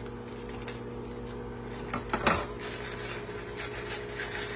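A sleeve of crushed Ritz crackers crinkling and crackling as it is cut open with kitchen scissors and the crumbs are shaken out into a plastic bowl, with a louder crackle about two seconds in.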